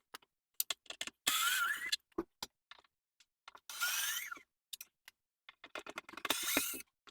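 Craftsman 19.2V cordless drill backing out the filter screws in three short bursts of about half a second each, its motor whine rising in pitch as it spins up each time, with small clicks of the bit and screws in between.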